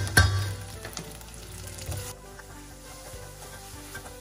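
Onions sizzling in hot oil in a stainless steel pot while ginger garlic paste is stirred in with a metal spoon; the spoon knocks once against the pot just after the start, then the sizzling goes on steadily with light stirring.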